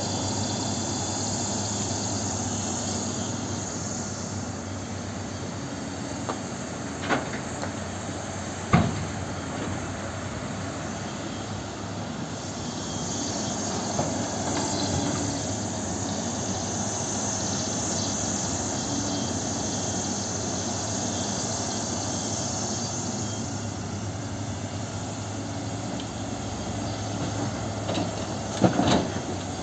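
Cat 324D hydraulic excavator's diesel engine running steadily as it digs, with two sharp knocks from the bucket about seven and nine seconds in. Near the end comes a clatter as the bucketload of earth and stones drops into the dump truck's steel bed.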